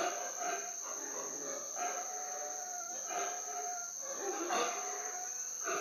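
Howler monkeys howling in repeated calls about every second and a half, over a steady high insect buzz.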